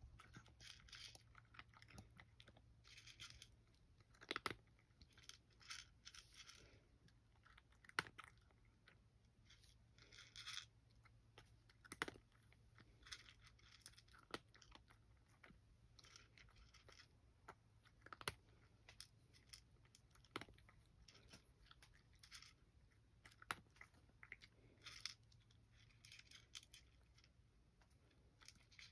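A cat crunching dry kibble: quiet, irregular bursts of chewing, with a sharper click now and then.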